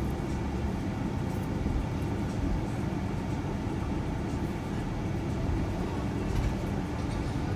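Steady low rumble of road and engine noise inside a moving shuttle van's cabin.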